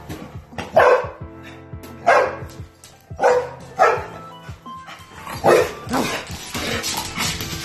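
A dog barking about five times, roughly a second or so apart, over background music.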